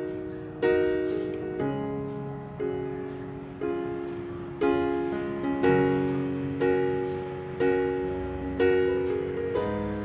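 Background music: gentle piano-like keyboard chords struck about once a second, each fading away.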